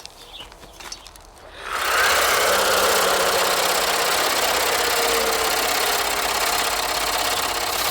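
Toy motorcycle making an engine noise, switched on about two seconds in and then running loud and steady. A few light handling clicks come before it.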